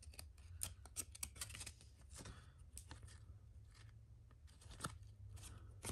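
Tall cardboard trading cards being fanned and slid against one another in the hand: faint, irregular light clicks and rustles.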